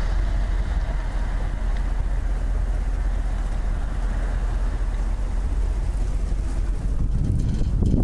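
A vehicle being driven along a road: steady engine and road rumble, with the low rumble swelling a little near the end.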